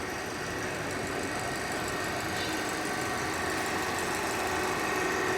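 Steady running noise of workshop machinery in a machining hall, with a few held whining tones over a broad hum, slowly growing a little louder.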